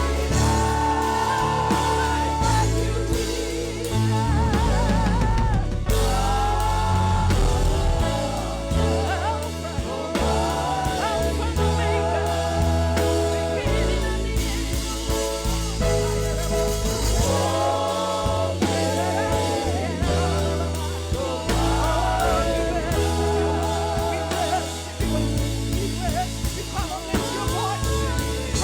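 Live gospel praise-and-worship music: a vocalist sings long, wavering notes with vibrato over a band with drums and a steady bass line.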